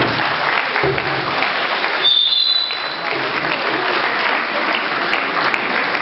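Audience applauding, a dense steady clapping.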